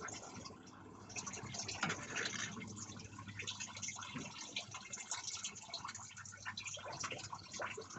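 Engine coolant trickling and dripping out of the part-drained radiator, with small irregular splashes and ticks.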